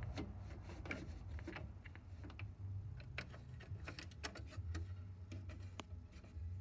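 Irregular light clicks and taps, a few to the second, over a steady low hum.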